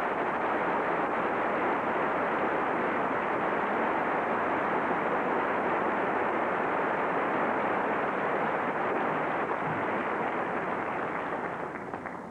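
Theatre audience applauding steadily, the clapping fading away near the end.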